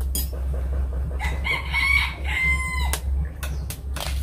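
A rooster crows once, a single call of under two seconds starting about a second in and dropping at the end, over a steady low rumble.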